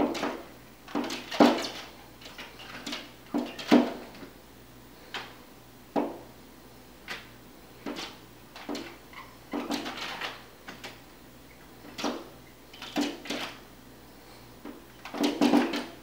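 Pileated woodpecker striking a glass patio door with its bill and wings as it attacks its own reflection: irregular hard knocks and taps on the glass in short flurries every second or two, the loudest a little over a second in and just under four seconds in.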